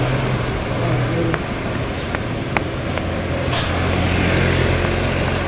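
Mitsubishi Fuso truck's diesel engine running steadily as the truck rolls downhill, with a short hiss about three and a half seconds in.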